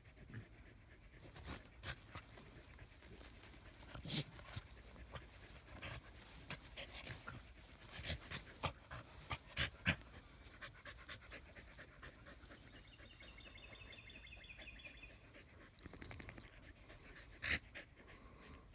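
Australian Shepherd panting, with irregular rustles and scuffs in the grass as it rolls on its back.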